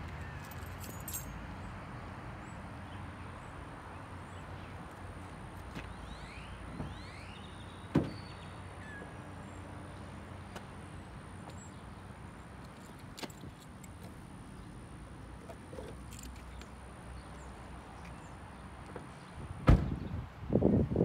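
Outdoor street ambience: a steady low rumble with a faint steady high whine and a few faint high chirps. A sharp click about eight seconds in and a louder one shortly before the end, followed by a burst of wind noise on the microphone.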